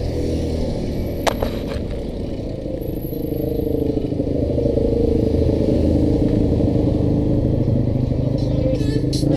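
Engines of slow, jammed traffic running close by, with one engine swelling louder a few seconds in. A sharp click about a second in, and a brief pulsing higher sound near the end.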